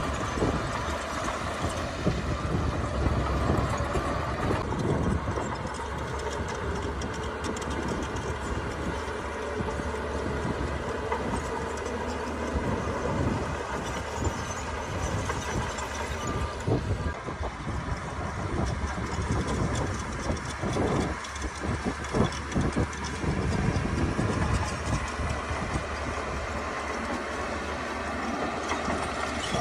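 Heavy diesel earthmoving machinery, a bulldozer with dump trucks, running steadily, with irregular metallic knocks and clanks through the middle stretch.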